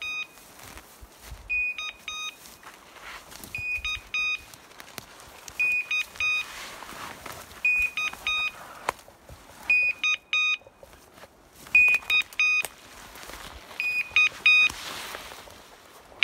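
Electronic beeper collar on an English setter repeating its alarm about every two seconds, each time a longer high tone followed by a few quick beeps. This is the kind of point-mode signal that tells the hunter the dog is standing on point, here on a woodcock.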